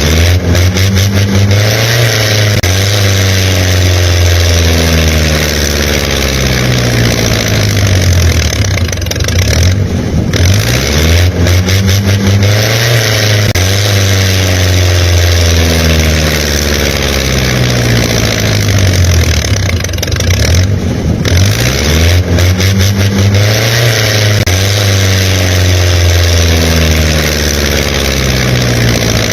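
Engine sound revving up and settling back again and again, the same rise-and-fall pattern repeating about every ten seconds, like a looped tractor engine sound effect.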